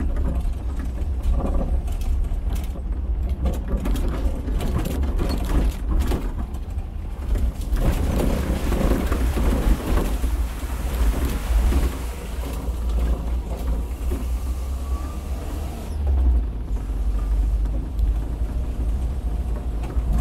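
Volkswagen Type 181 Thing's air-cooled flat-four engine running as the car drives over a dirt track, with a rush of water splashing around the middle as it fords a shallow stream.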